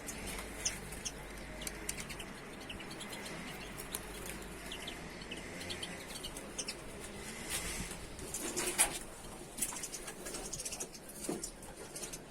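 Birds in a room fluttering their wings and calling, with cooing and scattered short chirps.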